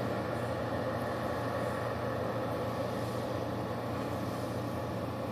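A steady mechanical drone, low and unchanging, as from a running engine or machinery.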